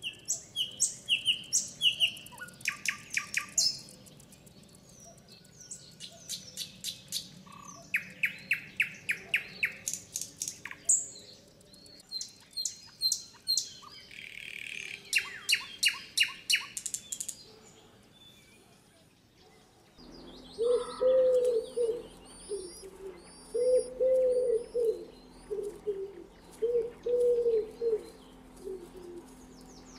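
Wild songbirds chirping and singing in quick, repeated strings of high notes. Later a low cooing call comes in, repeated in three phrases, with thinner, higher song above it.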